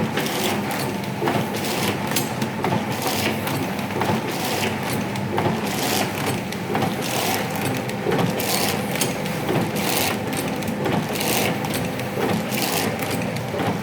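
Snack sachet packing machine running: a steady motor hum with repeated short clattering strokes, a bit more than once a second.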